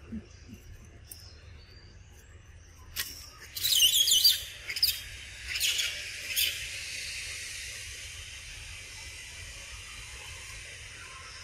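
Outdoor forest ambience: a burst of high, wavering chirping calls about three to four and a half seconds in, followed by three shorter chirps over the next two seconds. A steady high hiss sets in after them.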